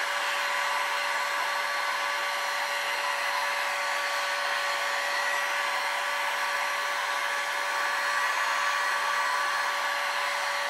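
Heat gun running steadily, a rush of air with a constant motor whine, heating the engine's crankcase to loosen a stubborn ball bearing.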